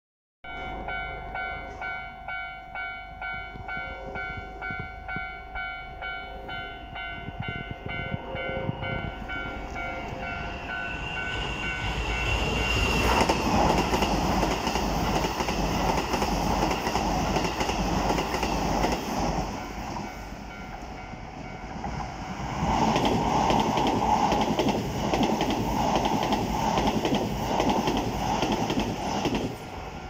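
Japanese level-crossing alarm ringing, a repeating electronic bell pulsing about twice a second. Partway through, a Keikyu New 1000 series train passes over the crossing with a loud rumble and wheel clatter. After a short lull a second train, a Keisei 3000 series, passes in the other direction, with the alarm still faintly audible underneath.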